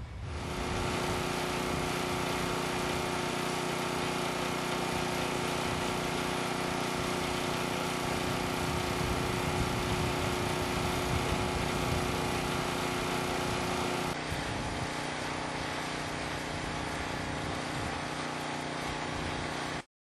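An engine running steadily, heard as a constant hum of several steady tones over a rumble. About fourteen seconds in, the set of tones shifts slightly. The sound cuts off suddenly just before the end.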